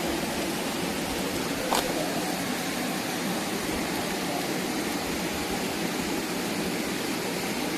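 Steady rush of a waterfall, an even hiss of falling water, with one short click about two seconds in.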